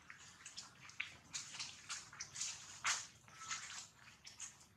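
Dry leaf litter rustling and crackling underfoot in irregular bursts, the loudest about three seconds in.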